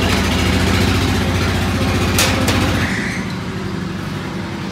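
An engine running steadily with a low, even hum that drops away about three seconds in; two sharp clicks come shortly before it fades.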